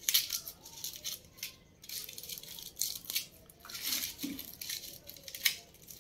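Dry, papery onion skins crackling and rustling in irregular short bursts as stored onions are rubbed and peeled by hand.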